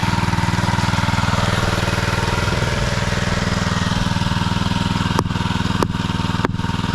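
An engine running steadily at idle. From about five seconds in, sharp clicks come at an even pace, about one every half second or so.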